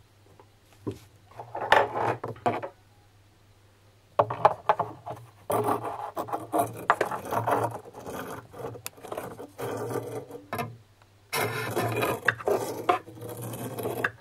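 Bursts of rough scraping and rubbing: a short burst about a second in, then longer, dense stretches from about four seconds in, broken by a short pause near the eleventh second. A low steady hum sits underneath.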